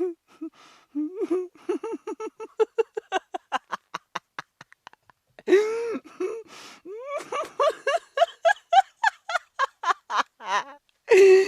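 A woman laughing hard in two long runs of quick, rapid pulses. The first run speeds up and trails off. A loud outburst and a gasping breath about halfway through start the second run, which rises in pitch.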